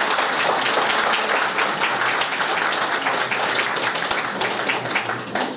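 Audience applauding: many hands clapping together in a dense patter that dies away near the end.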